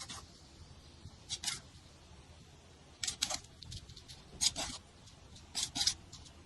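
Short scraping and clicking sounds in about four small clusters, from handling seasoning and utensils while preparing food.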